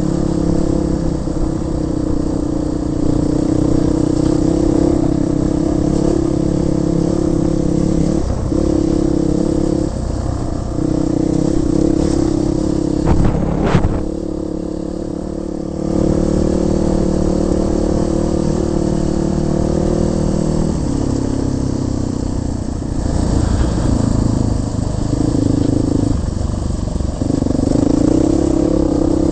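Four-stroke single-cylinder trail bike engine running under load over a rough lane, its note rising and falling as the throttle opens and closes. About halfway through there is a brief clatter and the engine note drops for a couple of seconds before picking up again.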